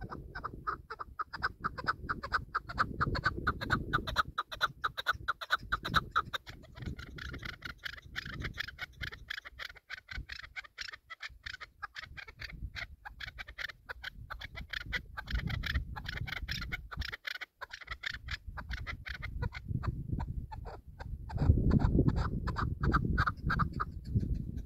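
Caged chukar partridge calling: a fast run of short clucking notes, several a second, through most of the stretch. Wind buffets the microphone underneath and is loudest near the end.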